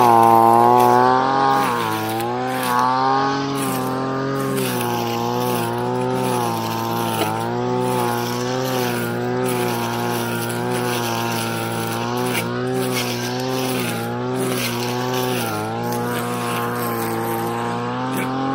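Engine brush cutter with a circular metal blade cutting weeds. The engine runs at high speed, louder for the first two seconds, then holds steady with brief dips in pitch as the blade bites into the grass.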